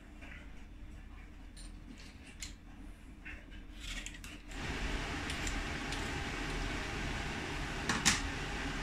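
Vegetable peeler scraping the skin off small potatoes over a wooden cutting board: faint scrapes and light clicks. From about halfway through, a steady background hiss takes over, with one sharp click near the end.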